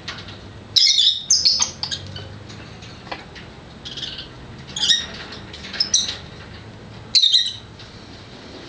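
Birds giving harsh, high calls in short bursts, about a second in, twice around five to six seconds, and again near seven seconds: the calls of birds mobbing a hawk to drive it off.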